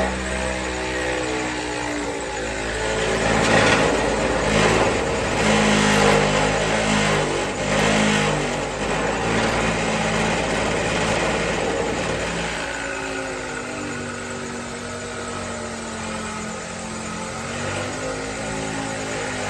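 Power sander running against the sheet metal of a car fender, a steady motor whine with gritty abrasive noise. The pitch wavers, dipping and rising, and the grinding is loudest in the first half.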